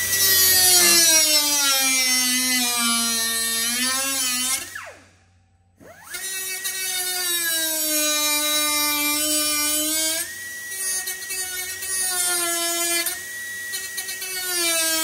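Pneumatic tool whining as it cuts out a Huck bolt fastening a truck's grill shell. Its pitch sags under load and rises again as it frees up. It runs in two long stretches with a one-second stop about five seconds in.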